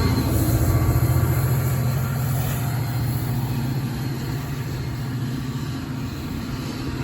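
NJ Transit diesel locomotive engine running with a low, steady hum that slowly fades as the train pulls away from the station.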